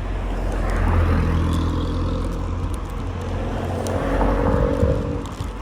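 Engine of a bus running close by, a steady low engine note that swells about a second in and again near the end.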